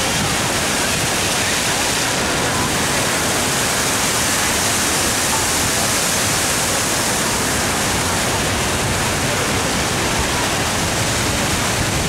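Rows of plaza fountain water jets spraying up and splashing back down onto the wet pavement: a steady, even rush of falling water.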